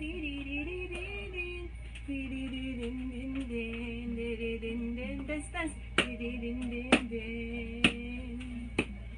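Music with a woman's singing voice holding long notes. In the second half come four sharp taps, about a second apart, louder than the music.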